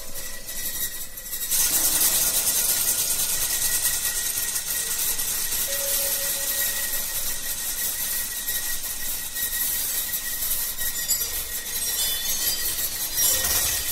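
Steady rasping, scraping noise over a faint high steady tone, louder from about a second and a half in.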